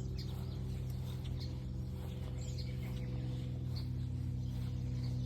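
Garden ambience: a steady low hum runs throughout, with faint, scattered high chirps from small birds.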